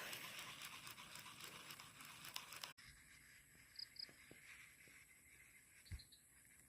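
Near silence: faint hiss, then after an abrupt cut a few soft clicks.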